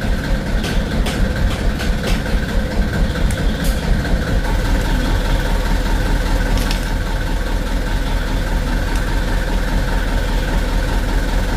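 Engine running in the background, a steady low drone that pulses for about the first four seconds and then settles into a steadier, deeper hum. Over it come a few light metallic clicks as small injection-pump parts are worked into place.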